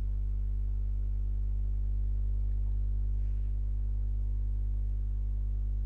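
Steady low electrical mains hum with a stack of higher overtones, picked up in the recording chain.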